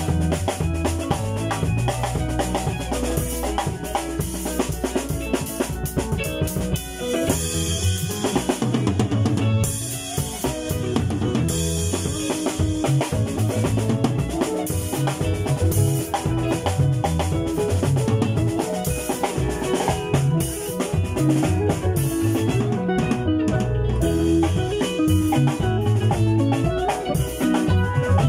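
Live band playing instrumental music: a Mapex drum kit driving the beat, with bass guitar and other instruments.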